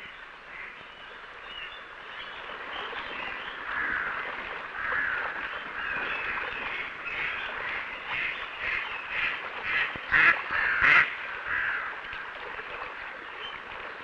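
Coots calling on the water: a stream of short, high begging peeps from the chicks as they are fed, with a few louder, sharper calls about ten and eleven seconds in.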